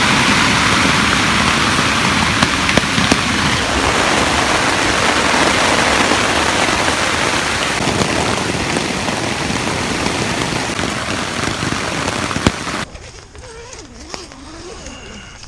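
Heavy rain pelting a tent: a dense, steady hiss with scattered sharp drop hits. It stops abruptly near the end.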